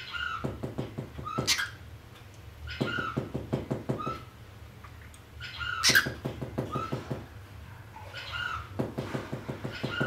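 Cockatiel chattering in four short bursts about three seconds apart, each a quick rattling run of clicks with short chirps.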